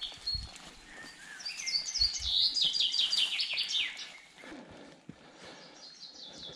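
A songbird singing in woodland: a quick run of high notes that falls in pitch over about two seconds, followed near the end by a shorter, fainter phrase.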